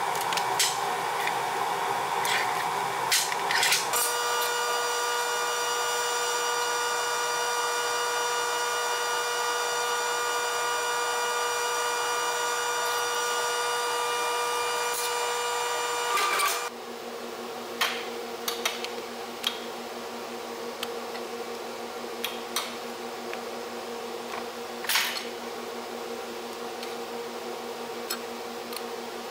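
Workshop sounds: a few sharp snips and handling clicks, then a steady multi-tone machine whine from a powered sheet-metal shear's motor running for about twelve seconds, cutting off abruptly. After that a lower steady hum with occasional light taps.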